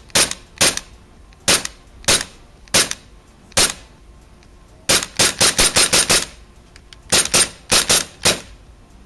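WE XDM 4.5 gas blowback airsoft pistol firing, each shot a sharp crack of gas release and the metal slide cycling. Spaced single shots at first, then a quick string of about eight shots about five seconds in, then a few more near the end.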